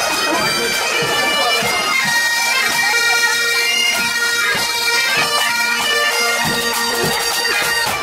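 A band of Highland bagpipes playing a tune over their steady drones, with crowd noise underneath in the first few seconds.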